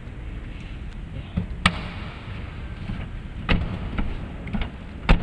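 Sharp knocks and thuds from a Mazda CX-3's tailgate being handled and shut, the loudest thud near the end.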